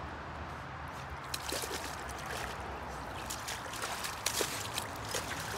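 Bouvier des Flandres puppy splashing and nosing in a shallow muddy puddle: small wet splashes and drips come in quick, irregular bursts over a steady background hiss, more of them from about a second in.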